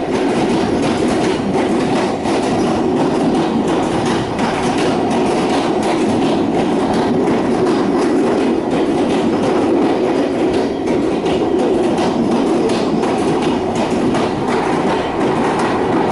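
Train running along the track: a steady rumble of wheels on rails with a light clickety-clack.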